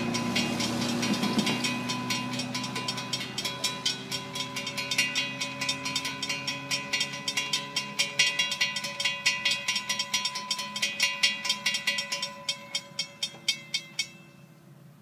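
Railroad grade-crossing signal bell ringing in rapid, even strokes, about three a second, as the crossing gates lower for an approaching train; the bell stops abruptly about a second before the end. A passing car fades out over the first couple of seconds.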